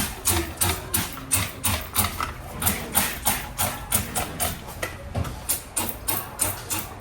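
Rhythmic scrubbing strokes, about three a second, as refrigerator parts are washed.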